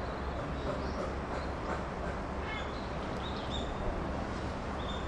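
Steady low rumble of background noise with short high chirps scattered through it.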